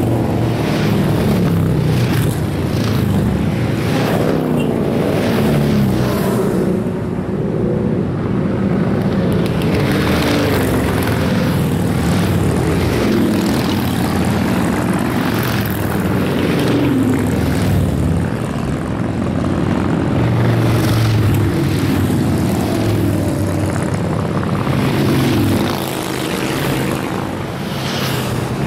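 A stream of cruiser and touring motorcycles riding past one after another, their engines overlapping in a continuous drone that swells and falls as each bike goes by.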